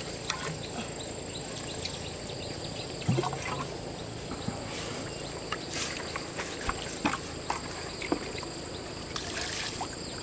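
Quiet outdoor background with a steady high insect drone and scattered light clicks and taps.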